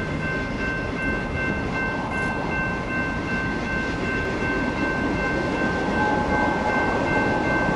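A distant freight train rolls slowly toward the listener, its rumble growing slightly louder near the end, with a steady high-pitched tone held throughout.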